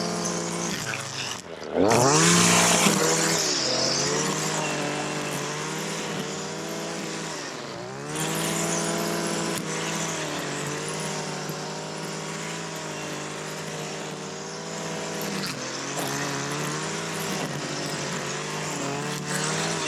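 Small petrol engine of lawn-care equipment running at high speed. Its pitch drops and climbs back about two seconds in, with a short burst of hiss, and dips again around eight seconds in as the load or throttle changes.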